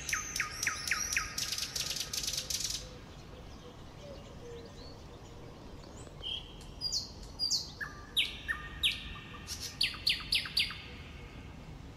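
Songbird singing: a run of quick down-slurred whistled notes that runs into a fast trill, then a pause of a few seconds and another run of short notes.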